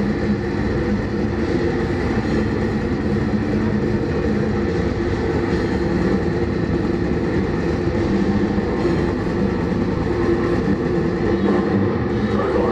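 Deathcore band playing live, heard as a loud, dense, distorted wall of heavy guitars and drums that runs without a break.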